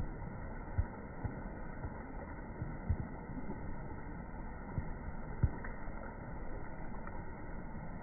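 Steady rush of flowing river water, with a few short, low thumps on the microphone scattered through.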